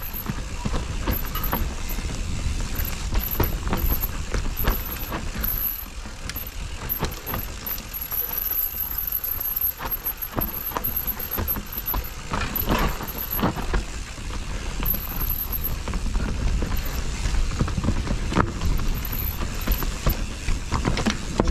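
Mountain bike ridden on a dirt trail: tyres rumbling over the ground, with the chain and frame rattling in frequent short clicks and knocks, and wind buffeting the microphone.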